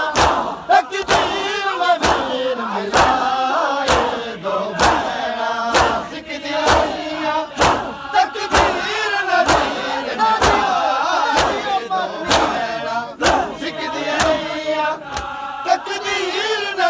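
A crowd of men chanting a Punjabi noha in unison, with mass chest-beating (matam): open hands slap bare chests together about once a second, in time with the chant.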